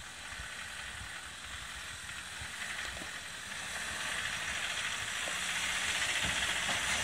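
Land Rover Defender 90's engine labouring under load as it crawls up a steep rocky climb, struggling a bit, with a steady hissing rush over it. The sound grows steadily louder as the vehicle comes closer.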